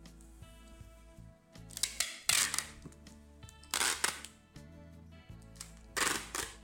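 Clear packing tape pulled off a handheld tape dispenser and pressed across a cardboard box, in three loud pulls about two seconds apart, over background music.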